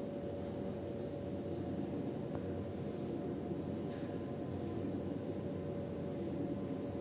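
Steady low hum and hiss with a constant faint high whine, unchanging throughout: background machine or electrical noise.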